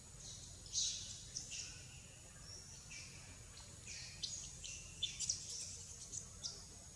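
Birds chirping: a scattered series of short, high chirps and squeaks against a steady faint background hiss.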